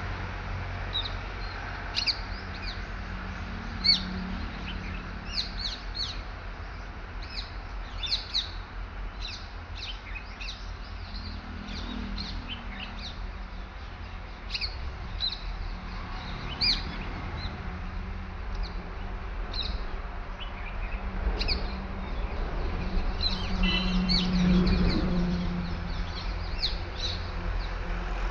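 Birds chirping: many short, high calls scattered throughout, over a steady low rumble.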